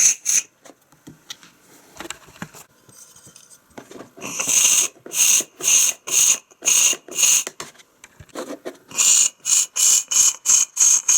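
Espresso machine giving a run of short, high squealing pulses, about two a second, starting about four seconds in after a few faint clicks, pausing briefly and then going on a little faster.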